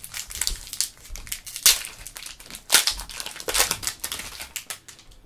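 Foil wrapper of an Upper Deck Marvel Ages trading card pack being torn open and crinkled by hand: an irregular run of sharp crackles and rustles, loudest about a second and a half and about three seconds in.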